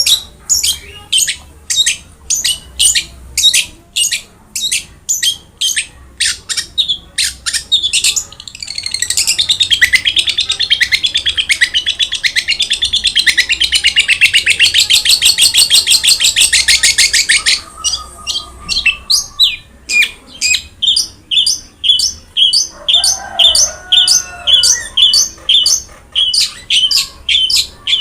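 Long-tailed shrike singing loudly. It gives sharp repeated high calls, two or three a second, then breaks into a very fast, dense trill for about nine seconds starting around eight seconds in, then returns to sharp repeated calls.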